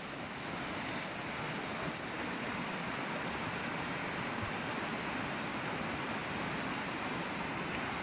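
Steady rushing of a fast mountain stream, an even roar that holds its level throughout.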